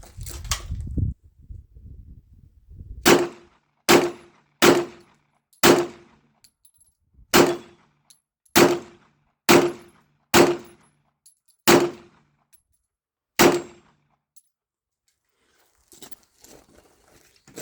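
Handgun fired in a long, steady string of about a dozen single shots, each a sharp report, most of them spaced about a second apart: nearly a full magazine emptied. The shooting stops about three-quarters of the way through.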